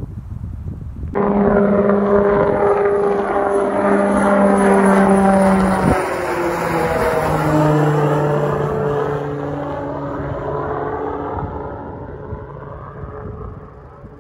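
A jet aircraft passing close overhead: engine tones and a high whine drop in pitch about six seconds in as it goes by, then fade away. The sound comes in abruptly about a second in.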